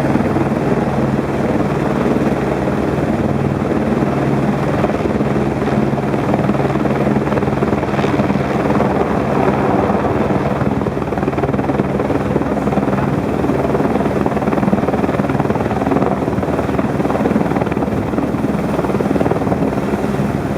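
Helicopter running steadily: a rapid rotor chop over a constant low engine hum.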